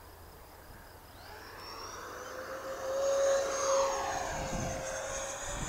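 Twin 12-blade 64 mm electric ducted fans of a FlyFans MiG-25 RC jet whining at reduced throttle as the model flies past. The sound swells to its loudest about three seconds in and then eases off.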